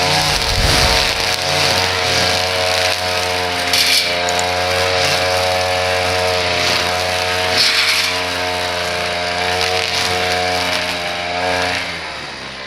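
Small engine of lawn-care equipment running steadily at working speed, its pitch wavering slightly, and easing off near the end.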